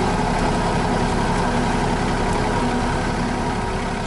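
RK 37 compact tractor's diesel engine running steadily as the tractor drives forward carrying a log in its front loader grapple.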